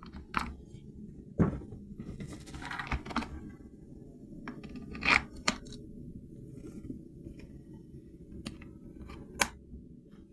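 Handling sounds from a toy RC tank and its packaging: scattered sharp clicks and knocks, with a short rustle or tearing sound about two seconds in, over a low steady hum.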